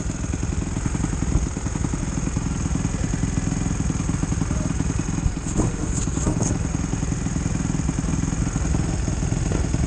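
Off-road motorcycle and quad engines running at low revs and idling, a steady rapid chug with no revving.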